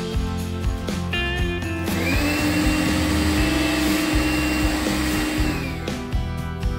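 Makita cordless handheld vacuum switched on about two seconds in, its motor whining up to speed, then running steadily while it sucks up drilling dust, and winding down as it is switched off near the end. Background music plays underneath.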